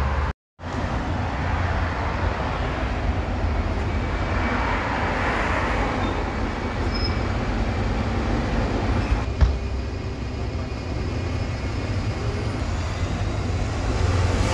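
Solaris Urbino 12 city bus running close by, a steady low engine rumble with one short sharp knock about nine seconds in. The sound drops out completely for a moment just after the start.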